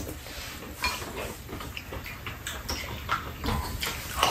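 Two people eating at a tray: chopsticks and spoons clicking and scraping against bowls and a pan, with chewing and lip sounds, in short irregular clicks.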